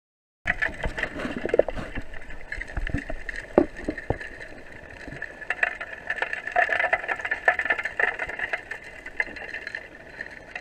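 River current heard through an underwater camera's microphone: a steady rushing hiss with scattered clicks and knocks of stones and gravel, starting about half a second in.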